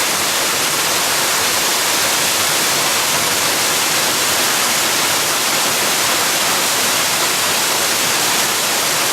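Waterfall, a steady, loud rush of falling water with no let-up.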